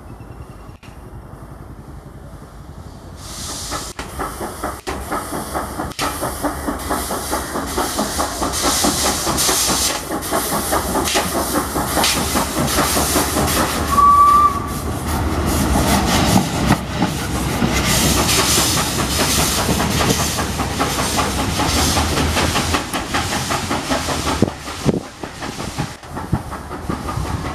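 The 1855 Kitson, Thompson & Hewitson steam locomotive EIR 21 running slowly past with its coach, steam hissing over a rapid, even clatter of wheels on rail, growing louder about three seconds in. Halfway through comes one short whistle toot.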